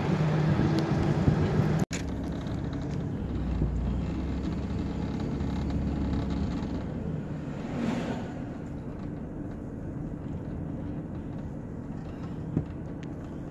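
A motor vehicle running, a steady low rumble with a drone to it, with a brief dropout in the sound about two seconds in.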